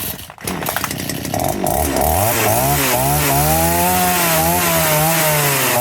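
Cheap unbranded two-stroke chainsaw running rough, then revved: its pitch climbs slowly for about two seconds and sags back down instead of holding high revs. This is the bog on throttle-up that the owner puts down to a clogged, dirty carburetor.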